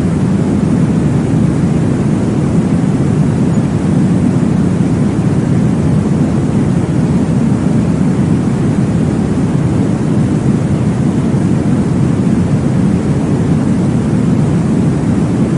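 Steady, deep whooshing noise from a baby-sleep white-noise track, weighted to the low end like a muffled womb sound, unchanging throughout.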